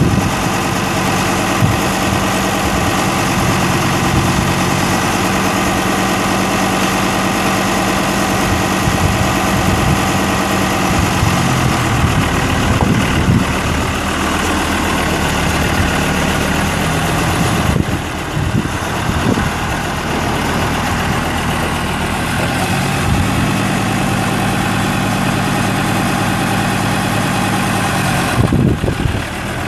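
Hesston 880/5 tractor's Fiat 4.6-litre five-cylinder diesel engine running steadily, its pitch changing for several seconds in the middle before settling back to a steady run.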